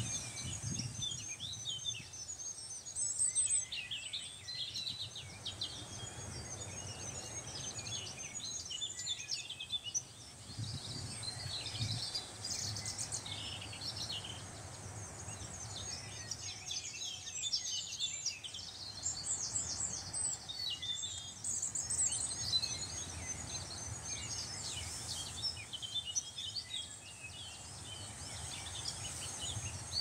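Several small songbirds chirping and twittering continuously, with a low background rumble underneath.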